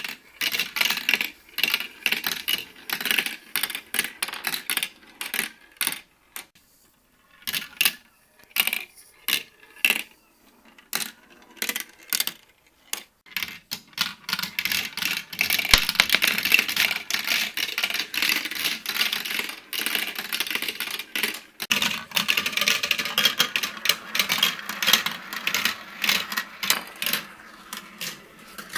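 Marbles rolling and clattering down a marble run: quick clicks and knocks as they drop through the pieces, growing into a dense, near-continuous rattle from about halfway through.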